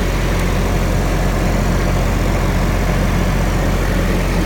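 Onan 12,500-watt diesel RV generator running steadily at a constant speed, with a low, even hum.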